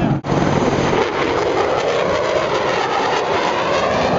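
Jet aircraft flying past, its engine noise a steady, dense rush that cuts out briefly just after the start.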